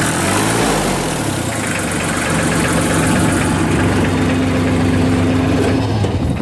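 1986 Bobcat 643 skid steer's Kubota diesel engine running steadily. Its note wavers up and down for about the first second, then holds level.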